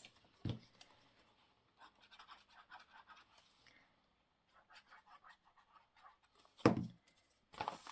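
Paper and card being handled and positioned on a craft table: faint scratching and rustling, with a soft thud about half a second in and two sharp knocks near the end.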